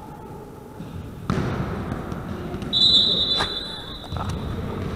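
A volleyball struck with a thud about a second in, then a referee's whistle: one steady, high blast of about two seconds, with another knock of the ball during it. The whistle is the call that stops the rally.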